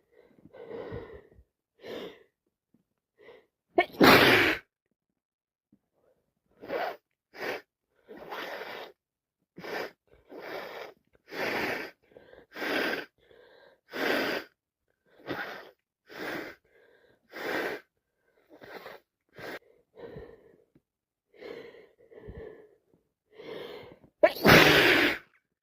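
A person sneezing: two loud sneezes, one about four seconds in and one near the end. Between them comes a run of short breathy sounds, roughly one a second.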